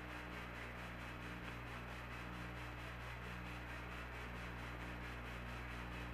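Steady hiss and low hum of the Apollo 11 air-to-ground radio loop with no one talking, carrying a faint low tone that breaks off about once a second.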